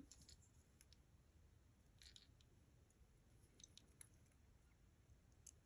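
Near silence, with a few faint light clicks and a brief soft rustle of metal jewelry being untangled by hand.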